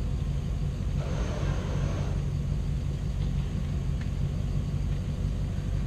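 Four-wheel-drive off-road vehicle's engine running steadily, low-pitched.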